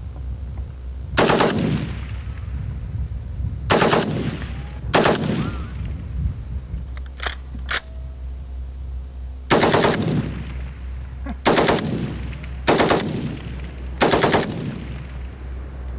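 Heckler & Koch G3 rifle in .308, without a muzzle brake, firing about seven short full-auto bursts of well under a second each, each trailing off in a short echo.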